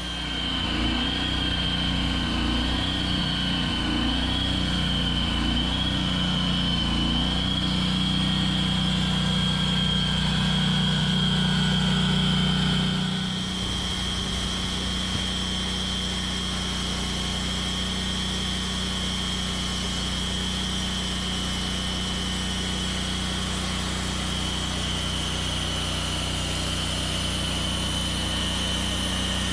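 Gas engine of a Norwood Lumbermate bandsaw mill running steadily, with a thin high whine above it. The sound drops slightly and settles about 13 seconds in.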